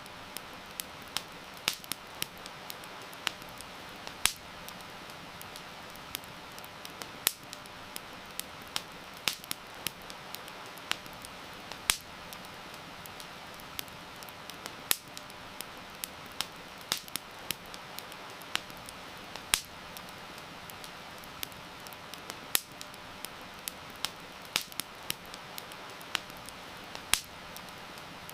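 Campfire crackling, with irregular sharp pops and snaps several times a second over a steady hiss of heavy rain.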